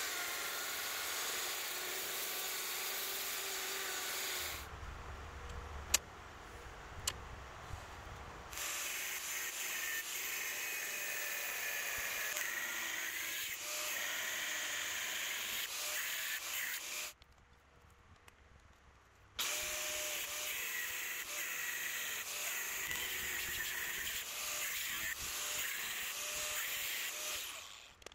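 Handheld power grinder with an abrasive disc running against steel plate, a steady whine with scraping, grinding off mill scale; it stops twice for a few seconds and halts near the end.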